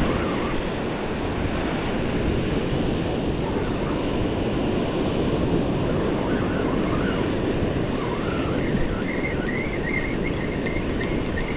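Ocean surf washing on the shore, a steady rushing noise with wind buffeting the microphone. Faint, high, wavering notes come in over it in the last few seconds.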